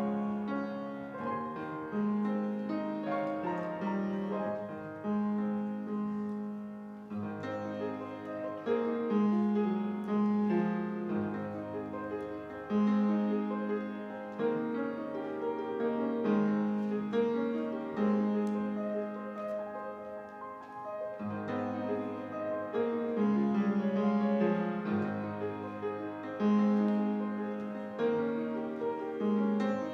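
Solo piano playing a slow, sustained instrumental hymn, its notes and chords changing every second or two over held bass notes.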